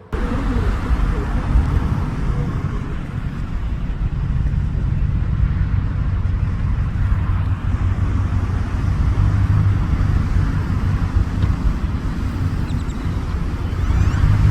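Steady low outdoor rumble picked up by a smartphone's microphone, cutting in abruptly right at the start and holding at a constant level.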